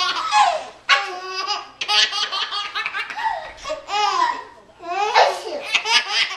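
A baby laughing hard in repeated high-pitched bursts with short breaths between them, several bursts falling in pitch.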